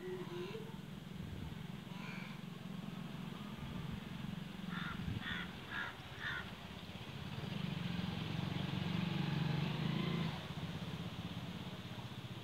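A crow cawing four times in quick succession about five seconds in, over a steady low motor hum that grows louder in the second half.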